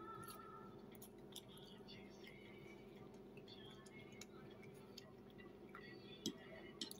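Near silence: low room hum with faint background music, and a couple of light clicks near the end as a fork touches the plate.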